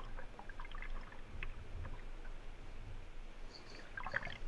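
Wing paddle blades dipping into and pulling through flat water with light splashes and drips, the strongest splash about four seconds in. A steady low rumble runs underneath.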